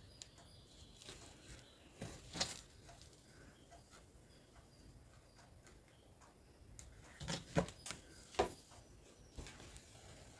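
Faint handling sounds of hand embroidery: a needle and thread being drawn through cloth stretched in a wooden hoop while French knots are worked. There are a few soft rustles and taps over quiet room tone, a little louder about two seconds in and again around seven to eight seconds.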